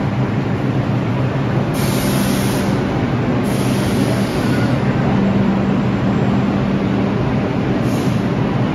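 Vintage IRT subway train of R33 and R36 cars running along the track: a loud, steady noise with a low hum underneath.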